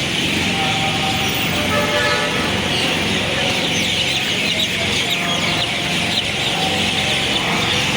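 City street ambience: a steady wash of traffic with a dense chorus of birds chirping over it, and short vehicle horn toots now and then.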